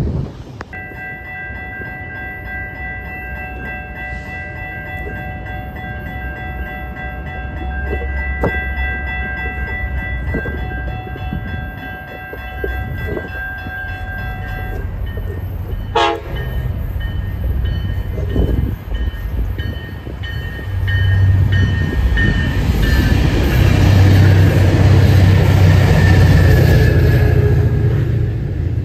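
Tri-Rail commuter train approaching and passing. Its horn holds a steady multi-note chord for much of the first half, and a heavy low rumble of the locomotive and cars builds and is loudest over the last several seconds.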